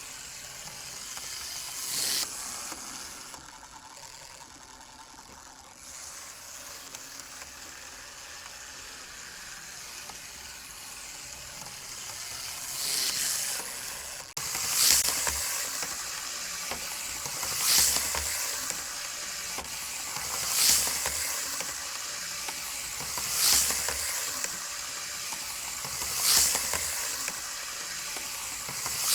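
A T-gauge Hankyu 9000 model train running laps on its small track. Its tiny motor and wheels make a steady high hiss that swells every time it passes close by. In the second half this comes about every three seconds.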